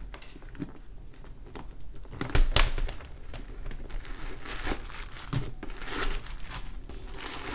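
Crinkly packing paper being crumpled and pulled out from inside a new leather handbag, crackling irregularly, with a dull thump about two and a half seconds in as the bag is handled.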